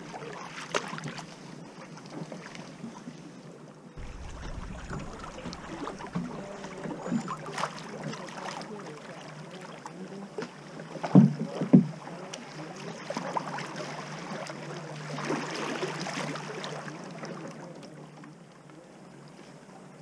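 Kayak paddles dipping and pulling through the water, with irregular splashing and dripping. Two loud knocks come a little past halfway.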